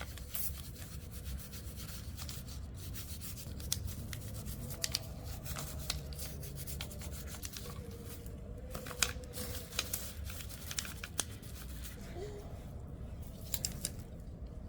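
Garden handwork: leaves and stems rustling and rubbing, with irregular sharp clicks and snips like pruning shears or scissors cutting plants.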